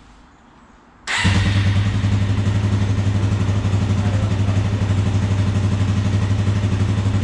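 Suzuki 400's single-cylinder four-stroke engine coming in suddenly about a second in and then running steadily at idle with an even, rapid pulse. The mechanic reckons it seems to have a carburetor problem.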